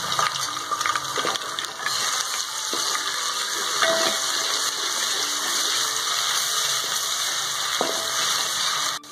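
Sliced onions and ginger-garlic paste sizzling steadily in hot oil in a metal pot, stirred with a wooden spatula that scrapes and knocks against the pot now and then.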